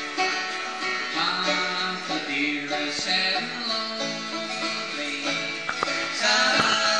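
Live bluegrass music: a banjo and an acoustic guitar playing together.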